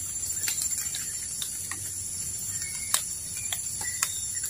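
Tropical forest ambience: a steady high-pitched insect drone with scattered sharp ticks and snaps, the loudest about three seconds in and another a second later.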